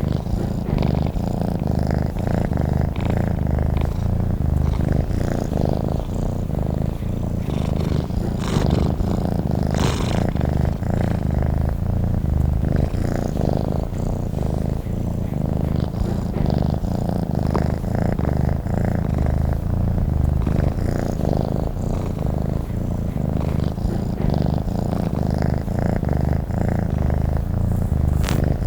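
Domestic cat purring steadily, a continuous low pulsing hum, with a few brief faint clicks or rustles about a third of the way in and near the end.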